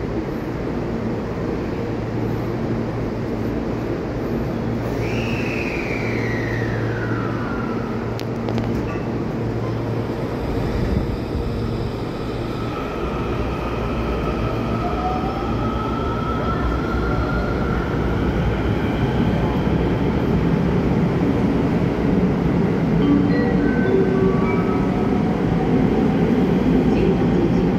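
Electric multiple-unit train pulling out of a station platform. Its traction motors give a whine that falls once about five seconds in, then rises steadily in pitch as the train gathers speed. The rolling rumble of the cars grows louder toward the end as they pass.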